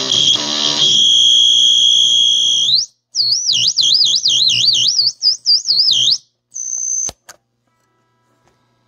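Basic Audio Pendulum pedal in oscillation mode on its 'pissed off birds' setting: a shrill, bird-like squeal over guitar notes through the amp, pulsing and then steady, rising and cutting off about three seconds in. It comes back as a fast warble swooping up and down in pitch as the knobs are turned, then a brief steady tone and a click near the end.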